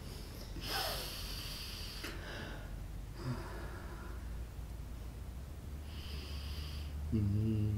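A person's close breathing and sniffs, three times, the first the loudest, as of someone holding back tears. Near the end a low, sustained musical drone with several layered tones comes in.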